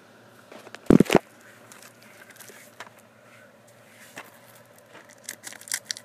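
Two loud knocks about a second in as a shrink-wrapped plastic DVD case is handled, then a run of light clicks and crinkles near the end as a serrated knife starts cutting the case's plastic shrink-wrap.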